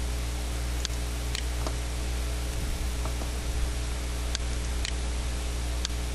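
Computer mouse clicks, about seven scattered single clicks, over a steady low hum and hiss.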